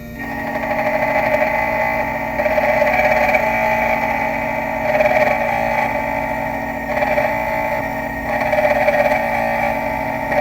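Black Widow key machine's 2 mm cutter plunge-cutting a Sargent key blank. A steady motor whine runs under a grinding cutting noise that starts about a quarter second in and swells and eases several times as the cuts are made.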